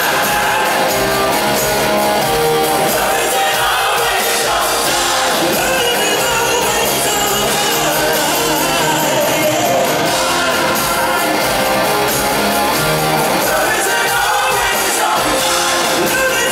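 Live rock band playing loudly, a male lead singer singing over drums, bass, electric guitar and keyboards, heard from the audience in a large, reverberant hall.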